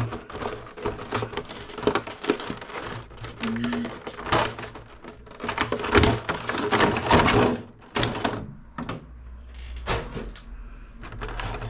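Small plastic model-kit parts and their packaging being handled and worked loose: a busy run of clicks, taps and rustling, densest in the middle.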